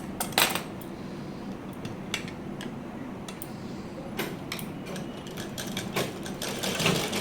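Scattered metallic clicks and clinks from handling a sewing machine between bouts of sewing, over a faint low hum. The machine's running sound starts again near the end.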